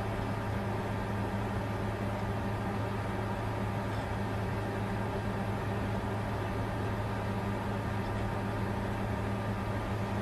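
Bitcoin mining computer running steadily: a constant low hum with a rushing noise over it.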